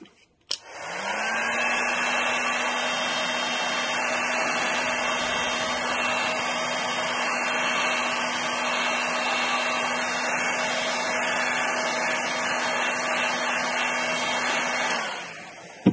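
Electric heat gun switched on with a click, its fan motor spinning up within a second and then running steadily with a hum and a rush of air. Near the end it is switched off and winds down.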